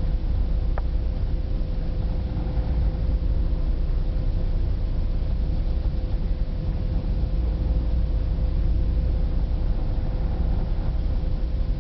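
Large car ferry under way: a steady low engine and hull rumble with a constant faint hum, unchanging throughout.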